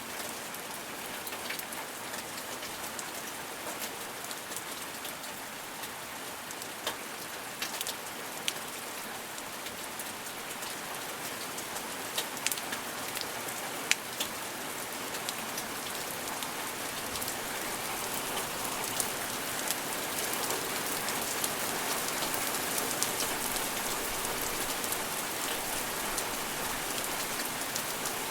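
Steady gentle rain falling on a surface: an even hiss with scattered sharp drip and drop ticks, growing a little heavier in the second half.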